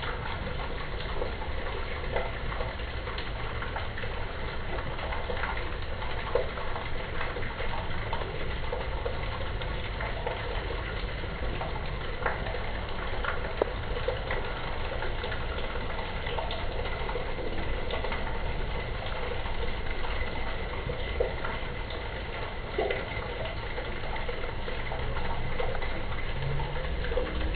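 Rainwater running and splashing into a street drain grate in a cobbled gutter, a steady gush with scattered small drips and splashes, over a steady low rumble.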